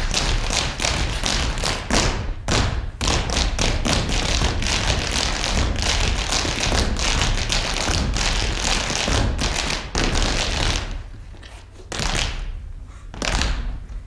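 Many dancers' feet stepping and stamping on a stage floor, a dense, uneven run of taps and thuds that thins out briefly near the end.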